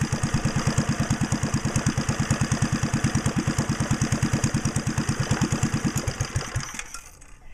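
1976 Briggs and Stratton 2 hp single-cylinder engine running with a steady, rapid beat, then shut off about six seconds in: the beats slow and die away as it coasts to a stop.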